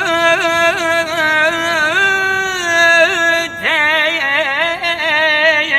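Unaccompanied solo voice singing a long wordless melismatic line in Iraqi style. It holds a note with regular ornamental turns, then starts a new phrase with wide vibrato about three and a half seconds in.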